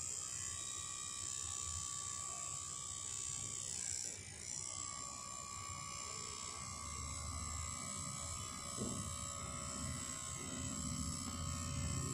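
Electric tattoo machine buzzing steadily as it needles ink into the skin, with a short dip about four seconds in.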